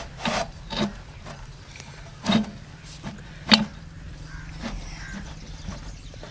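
Sharp metal clinks and knocks from a spanner and a rusty iron pipe flange being handled: a handful of separate knocks spread over the first four seconds, the loudest about three and a half seconds in.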